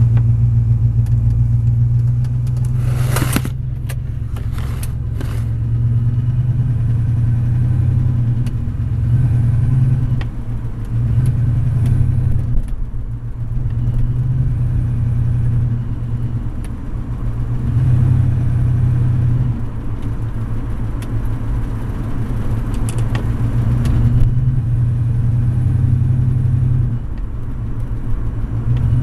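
A motor vehicle running with a steady low rumble that swells and eases a little, along with a whining noise of unknown cause. A few sharp clicks sound about three to five seconds in.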